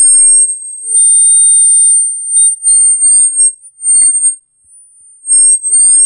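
Audio feedback squeal: a loud, piercing high-pitched tone held on one pitch, with fainter tones sliding up and down beneath it. It drops out briefly about four and a half seconds in, then comes back.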